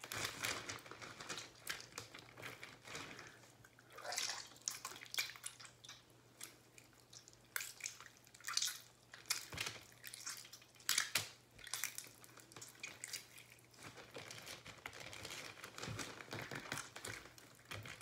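Homemade borax-and-clear-glue slime with glitter being folded and squeezed by hand, giving irregular wet squelches, pops and sticky crackles, some in louder clusters.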